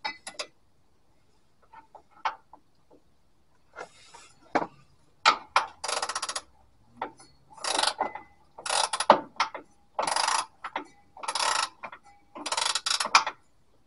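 Ratchet spanner clicking on its back strokes while it is swung to and fro on a rear shock absorber's mounting nut: about seven runs of fast clicks roughly a second apart, starting about five seconds in, after a few scattered light metal taps.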